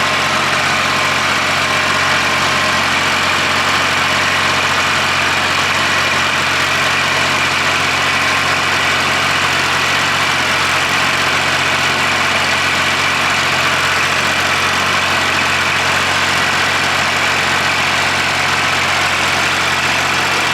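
Tractor engine running at a steady speed while it drives a Siromer P10 round baler, with the baler's machinery adding a steady whirring.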